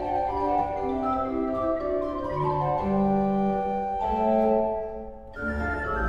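Renaissance-style pipe organ playing a folk tune in sustained, overlapping notes over held lower notes. About five seconds in, the music breaks off briefly, then new organ music with a deep bass comes in.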